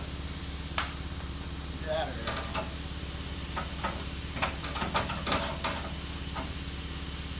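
Light metal clinks and knocks as the freshly cut section of a car's thin C-channel frame is handled, scattered and clustered in the middle of the stretch, over a steady hiss and low hum.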